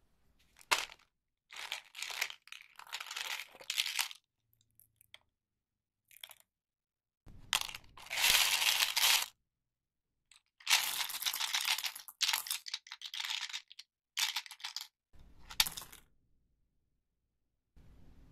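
Plastic candy wrappers crinkling and tearing open, in a series of crackly bursts with dead silent gaps between them. The longest bursts come about halfway through and again a little later.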